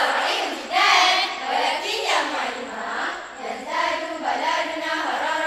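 A group of girls' voices chanting in unison, several voices together in short rhythmic phrases, as in a choral recitation.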